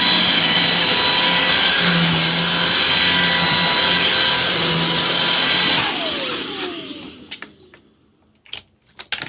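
Shark DuoClean cordless stick vacuum running steadily with a high motor whine, then switched off about six seconds in, its motor winding down with falling pitch. A few short clicks or knocks follow near the end.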